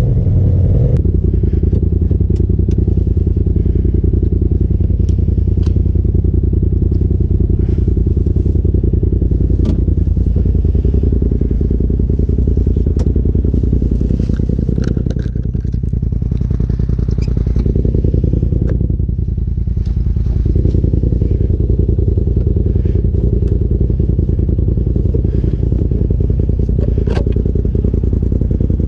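Polaris RZR side-by-side's engine running steadily, with scattered sharp clicks and knocks over it.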